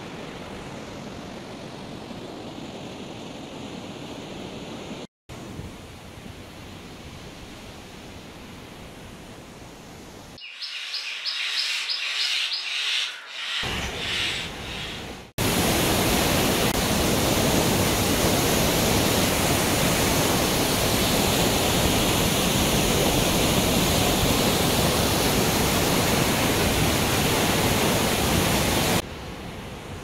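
Rushing water of mountain waterfalls and a river, heard in several cuts: a steady rush, a short stretch of rapid high chirps near the middle, then a much louder, close-up roar of a waterfall for most of the second half.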